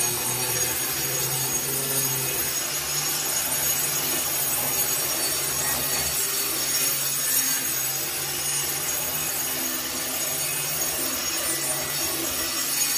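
A hand grinder working over a granite countertop, its dust drawn off through a vacuum hose: a steady grinding noise with a constant motor hum. It is scuffing the polished sheen off the stone so an epoxy primer will bond to it.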